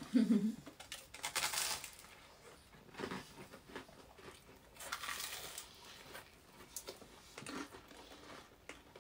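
Eating sounds close to the microphone: crisp garlic bread being bitten, torn and chewed, in a few short crunchy, crinkly bursts.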